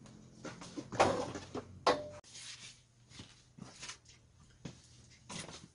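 Handling noises as things are picked up and moved: a clatter about a second in and a sharp click just before two seconds, then quiet, scattered rustles.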